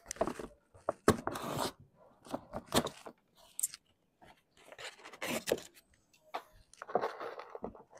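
Sheet of building paper crinkling and rustling as it is handled, pressed into place and trimmed on a dormer's timber framing, in uneven bursts with a few sharp clicks.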